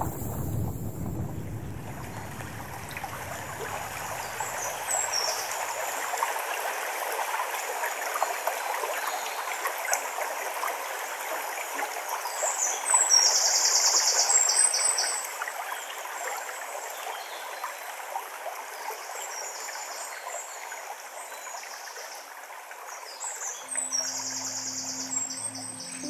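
Running water of a small stream babbling steadily while songbirds chirp. A bird gives a fast, loud, rattling trill about halfway through and another near the end.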